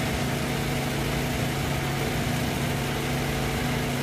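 An engine running steadily, a low even hum that holds one pitch, with a constant hiss over it.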